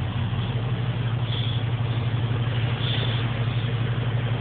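Supercharged 383 stroker V8 in a 1996 Impala SS idling steadily, a low, even drone.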